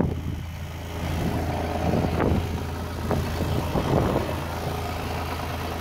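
Electric boat conversion under way: a steady low hum from the drive, with wind and water noise and a few light knocks about two, three and four seconds in.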